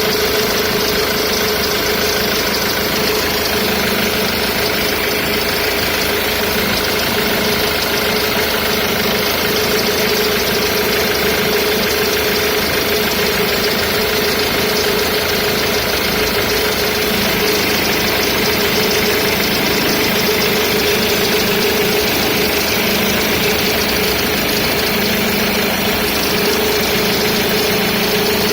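Ford Mondeo Mk3 2.0 TDCi four-cylinder common-rail diesel engine idling steadily, with a constant tone over the diesel clatter. This is the odd engine noise that the owner says lasts only until the engine warms up.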